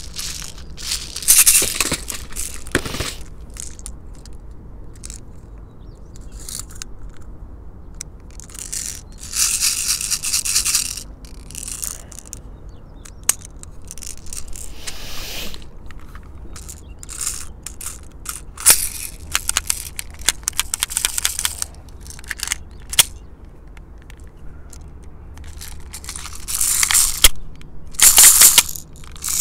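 Beretta M92FS airsoft gas pistol magazine being charged with gas, with hisses of a second or two near the start, about ten seconds in and near the end. Between them come small clicks as BBs are pushed into the magazine and it is handled.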